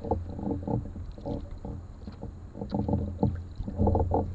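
Canoe paddles dipping and pulling through river water, with irregular splashes and water gurgling along the hull, over a low rumble of wind on the microphone.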